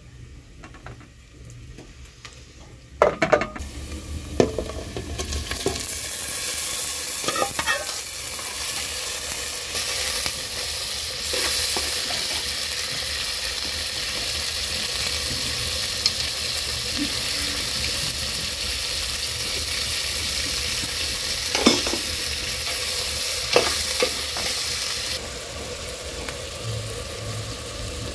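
Meat and onions frying in a metal pot over an open wood fire: a steady loud sizzle sets in about five seconds in and eases off near the end. Before it there are a couple of sharp clatters, and a utensil knocks against the pot now and then while the food is stirred.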